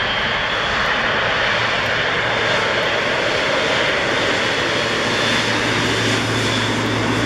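Boeing 777-300ER's GE90 turbofan engines running at taxi power: a steady jet rush with a whine, and a low hum that grows stronger a few seconds in as the airliner draws level.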